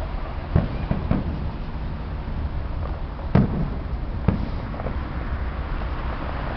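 Fireworks going off: several sharp bangs at irregular intervals, the strongest about three and a half and four and a quarter seconds in, over a steady low rumble.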